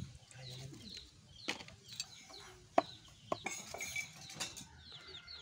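Outdoor yard ambience: small birds chirping in repeated short, falling calls, with chickens clucking. A few sharp cracks and clicks come through, the loudest about three seconds in.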